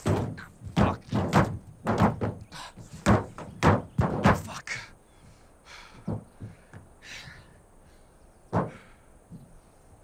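Feet pounding on a car's sheet-metal hood: a quick run of about a dozen heavy thuds over the first five seconds, then a few single thumps, one of them loud, as he climbs onto the car.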